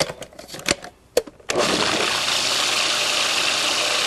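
A few clicks and knocks, then about a second and a half in a food processor's motor starts and runs steadily, blending a thick pumpkin and tofu pie filling.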